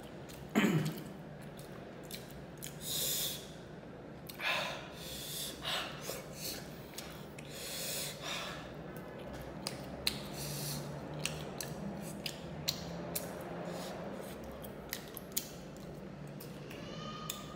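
A person eating spicy fried fish by hand, breathing hard and sniffing between mouthfuls, with many small chewing and mouth clicks. The heavy breaths are a reaction to the chili heat. A short, loud falling vocal sound comes about half a second in.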